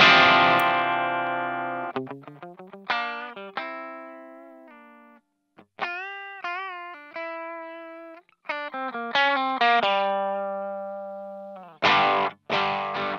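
Electric guitar played through a T-Rex Møller 2 overdrive pedal. A distorted chord rings out and slowly fades, then single-note phrases follow, including a held note with vibrato, and short chopped chords start again near the end.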